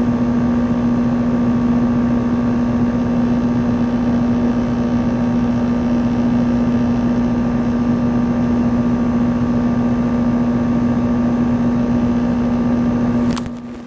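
2000 Trane XE1200 2.5-ton air-conditioner condensing unit running: a steady hum from its Climate-Tough compressor under the rushing air of the condenser fan. Near the end there is a sharp click and the sound drops off suddenly.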